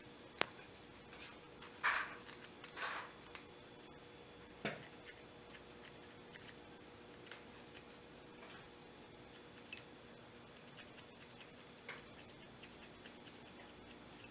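Sparse small clicks and short scrapes, with one soft knock a little before the middle, from parts being handled during a washing machine repair, over a faint steady hum.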